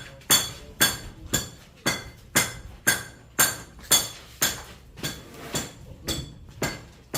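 Steady hammer blows, about two a second, each with a short metallic ring.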